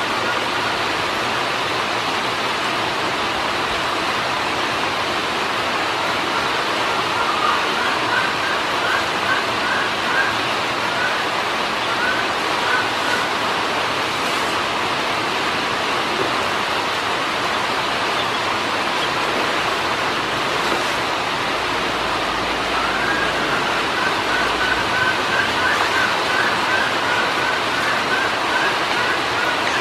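Ducklings peeping in runs of short quick chirps, twice, over a steady rushing hiss.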